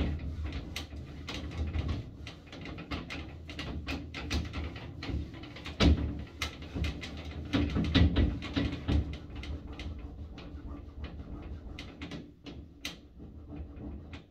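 Irregular knocks, bumps and clicks from someone moving about inside a glass shower cubicle, with a low rumble underneath. The knocks thin out near the end.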